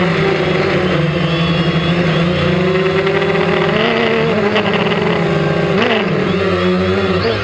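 DJI Phantom quadcopter's motors and propellers whirring steadily, heard close up from the camera it carries. The pitch swoops briefly up and down a few times in the second half as the drone banks and turns.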